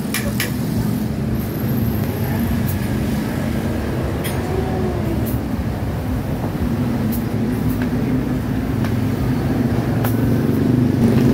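A couple of hammer taps on the bicycle hub right at the start, driving out its sealed bearings, then a steady low rumble of motor vehicles with a few light metal clicks now and then.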